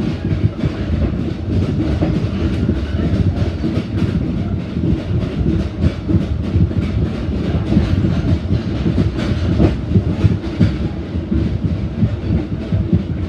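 Passenger carriage of a metre-gauge train (SE7 Reunification Express) running at speed, heard from inside the carriage: a steady rumble of wheels on the rails with frequent clicks and clacks over the track.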